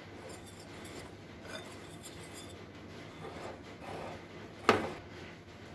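Wire whisk stirring dry flour and spices in a glass bowl: a soft, steady dry scraping, with one sharp knock near the end.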